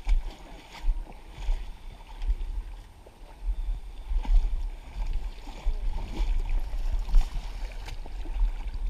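Water sloshing and splashing as people wade through a shallow river, under a gusty low rumble on the microphone, with a few sharp knocks and faint voices in the background.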